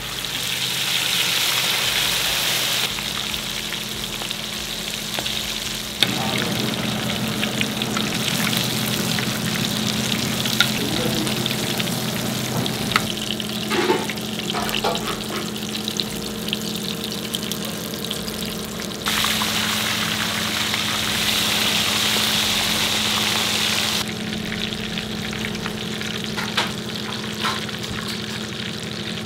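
Oil sizzling steadily around a large masala-coated seer fish shallow-frying in a pan, with a steady low hum underneath. The sizzle shifts in loudness at several cuts, and a few short knocks come near the middle.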